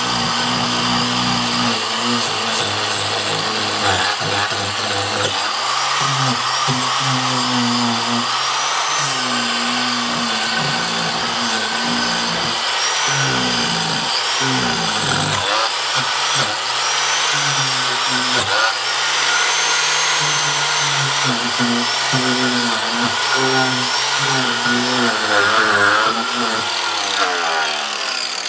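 Corded handheld power tool running as it cuts into a rotted log, its motor pitch dipping and recovering over and over as it bites into the wood.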